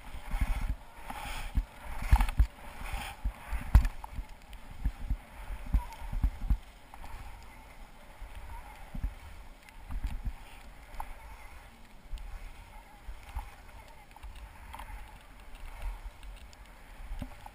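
Wind buffeting a body-worn camera's microphone in irregular low gusts while skiing downhill, with the hiss and scrape of skis sliding over snow, busiest in the first few seconds.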